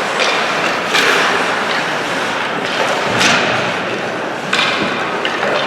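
Ice hockey play in an indoor rink: skate blades scraping the ice and sticks and puck clacking, with a few sharp hits about a second in, near the middle and after four seconds, over a steady echoing hall noise.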